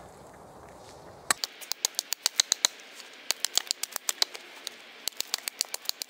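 Small Gränsfors hatchet chipping the bark off an upright birch log with quick light strokes: a fast series of sharp taps, several a second, starting about a second in, with a brief pause around the middle.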